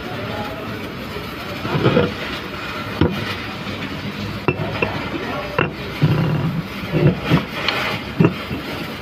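Electric arc welding: the arc crackling steadily, with a handful of sharp knocks scattered through it.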